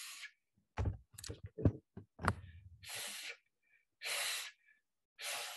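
A man blowing out short, forceful single breaths through the mouth, four in all with the last three about a second apart, as a breathing exercise for trumpet playing. A few sharp knocks and thumps come between the first and second breath.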